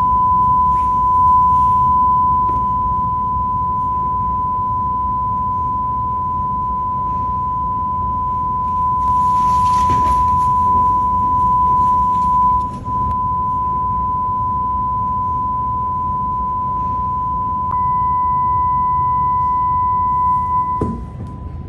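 A steady 1,000 Hz test tone for a sound-absorbing panel test. Its level dips about 13 seconds in and rises again near 18 seconds, where a fainter higher tone joins it. It stops with a click just before the end.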